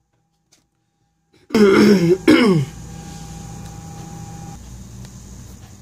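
A person clears their throat loudly in two short pushes, the second falling in pitch, about a second and a half in after near silence. A steady low hum of room noise follows.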